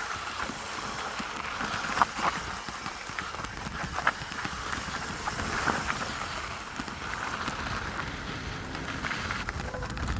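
Canyon Strive full-suspension mountain bike descending a rocky trail: a steady crunch and hiss of tyres rolling over gravel and stone, broken by sharp knocks and rattles as the bike hits rocks, the loudest about two and four seconds in.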